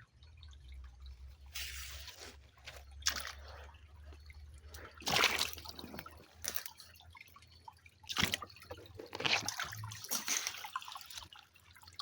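River water splashing and sloshing in irregular bursts, several loud splashes a second or so apart.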